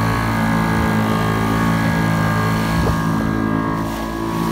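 Small outboard motor on a wooden boat running steadily at full throttle, with water and wind rushing past.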